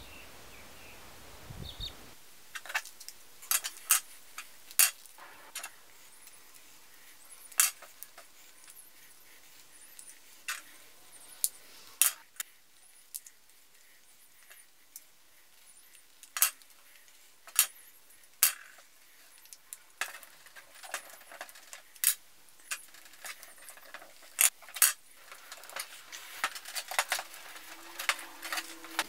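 Small steel hook and pick tools clicking and scraping against a lawnmower wheel and being set down on a tabletop: scattered sharp clicks, turning into denser scratching near the end.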